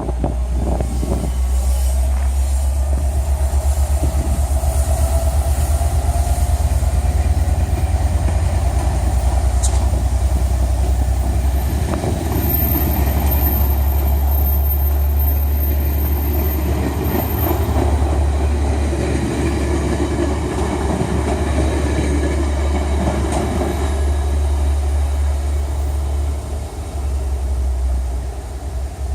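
GO Transit commuter train rolling past: a loud, steady rumble of the cars on the rails that lasts throughout, easing a little near the end.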